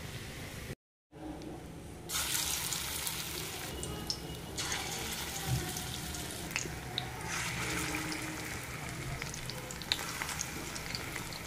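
Okra pakoras frying in shallow hot oil in a wok: a steady sizzle with scattered small pops, starting about two seconds in after a brief cut to silence. Near the end, more batter is dropped into the oil.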